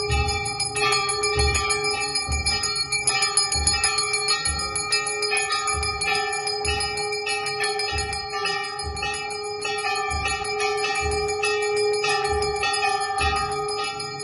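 Temple bells ringing fast and continuously during aarti, with a low thud repeating a little faster than once a second.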